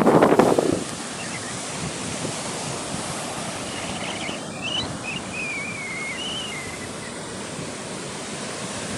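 Ocean surf: a wave surges in about the first second, then the sea washes steadily. A few faint high chirps come through midway.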